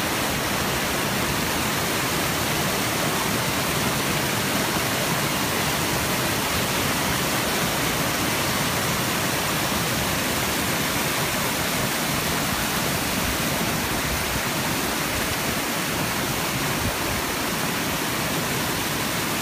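Steady rushing and splashing of a small waterfall tumbling over rocks into a glacial lake.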